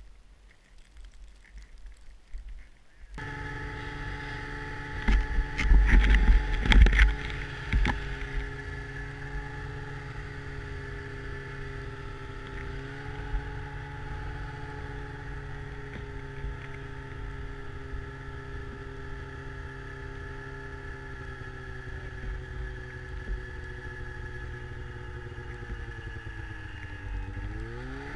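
Snowmobile engine starting up about three seconds in and then running steadily, with loud buffeting on the microphone for a few seconds just after it starts. Near the end the engine's pitch dips and climbs again as the throttle changes.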